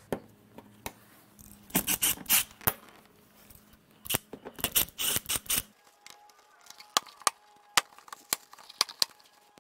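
Sharp clicks and snaps of a hand tool prying out the plastic retaining clips of a 1994 Mazda Miata's door panel, in two quick clusters and then scattered single ticks.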